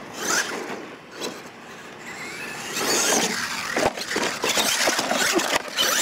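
R/C monster truck running on a dirt course, its tyres scrabbling and throwing dirt. It gets louder about halfway through, with a sharp knock near four seconds in as the truck tips and rolls over. Close scraping and rustling follow.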